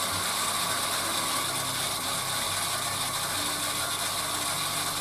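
Electric surface water pump on a pressure tank, its motor running steadily. With the taps shut it is building pressure in the tank.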